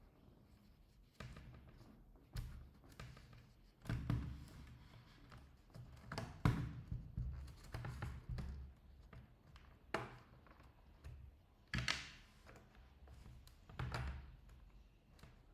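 Scattered taps and knocks, a second or two apart, from a tool and hands working on a laptop's plastic bottom panel while the screws holding it are taken out.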